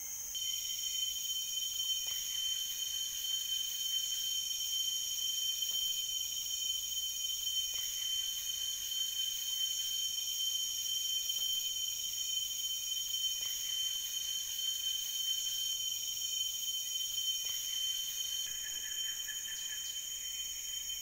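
Chorus of rainforest insects calling together, several steady high-pitched calls layered over one another, some of them pulsing, with a few faint clicks.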